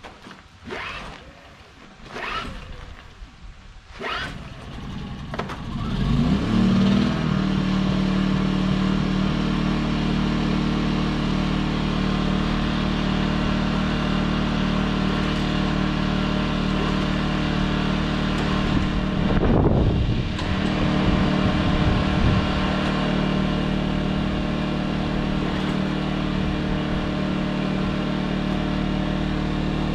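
Champion inverter generator being pull-started: several quick rips of the recoil starter cord, then the engine catches about six seconds in and settles into steady running. Around twenty seconds in its pitch briefly dips and swings before it steadies again.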